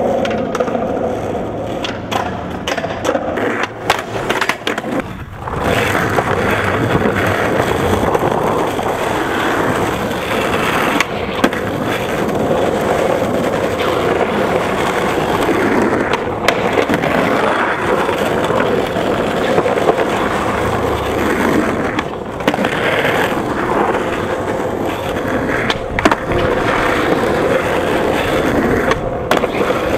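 Skateboard wheels rolling on pavement with a steady, gritty rumble. The first few seconds hold a string of sharp clacks of the board hitting the ground, and after that single clacks come now and then over the rolling.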